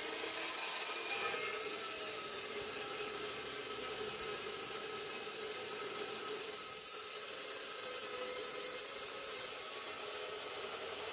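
Metal-cutting cold saw running steadily as its blade slowly cuts through 3/16-inch steel flat bar at a 45-degree mitre, a steady whine over a grinding hiss. The blade is getting a little dull.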